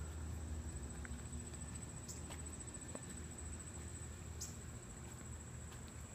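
Quiet outdoor ambience in woodland: a steady, high-pitched insect drone runs throughout over a low rumble, with a few short chirps about two and four and a half seconds in.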